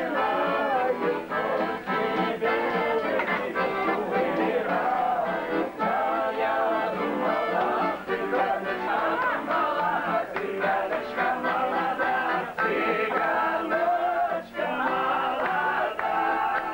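A group of men singing a song together to a strummed acoustic guitar.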